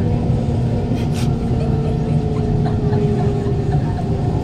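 Kawasaki Heavy Industries C151 metro train running at restricted speed, heard inside the car: a low rumble of wheels on the rails with several steady hums from its GTO-VVVF traction motors.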